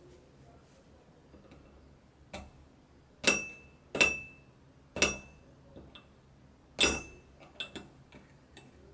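Metal spoon tapping and cracking the hard caramelized sugar crust of a crème brûlée in a ceramic ramekin. One light tap, then four sharp taps with a short ring about a second apart, then a few lighter clicks near the end as the crust breaks up.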